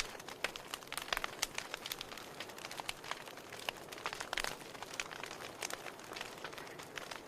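Wood fire crackling in a fireplace: irregular sharp pops and snaps over a soft steady hiss of burning.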